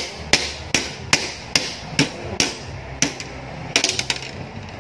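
Jump rope slapping a wooden floor with each turn, in a steady beat of about two to three sharp smacks a second, breaking into a quick cluster of clicks near the end.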